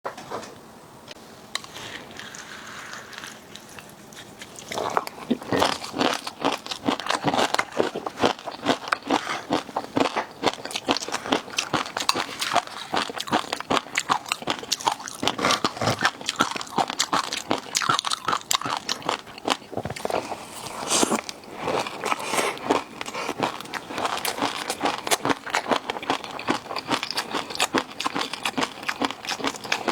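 Close-miked eating: a person biting and crunching into seafood, with dense, rapid crunches that start about five seconds in after a quieter opening.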